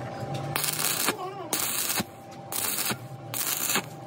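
Arc welding on the splines of a truck countershaft: the arc crackles in four short runs of about half a second to a second each, cutting on and off abruptly as the arc is struck and broken.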